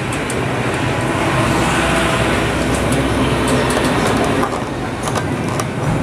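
Low engine rumble of a passing vehicle, building over the first couple of seconds and easing off after about four, with a few light clicks near the end.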